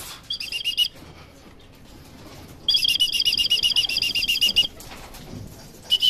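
Racing pigeon's wings flapping in rapid, even beats, about ten a second. There is a short burst near the start and a louder burst of about two seconds in the middle.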